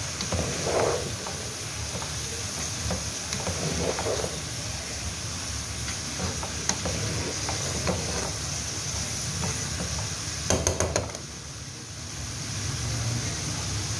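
Shredded cabbage, carrots and chicken sizzling in a non-stick wok while a slotted spatula stirs and scrapes through them, with a quick run of sharp knocks about ten and a half seconds in.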